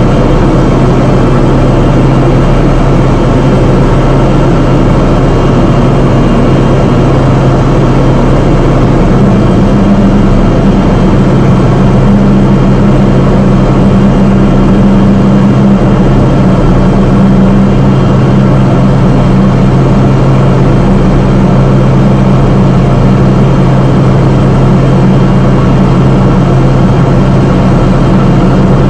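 Engine and propeller of a single-engine propeller airplane droning steadily, heard from inside the cockpit. A second, slightly higher hum joins about nine seconds in and holds.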